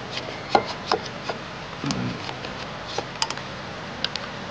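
A scattering of light, sharp clicks and taps at an uneven pace, tools and parts being handled during hands-on work, with a short low sound about two seconds in.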